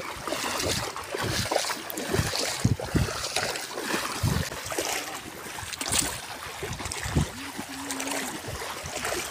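Wind buffeting the microphone over a shallow, rippled lake, with irregular low thumps under a steady hiss of wind and lapping water.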